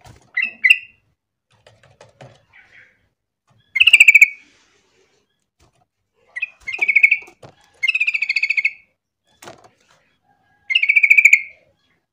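Yellow-vented bulbul (trucukan) singing: rapid, bubbly chattering phrases, two short notes near the start and then four louder bursts of about a second each.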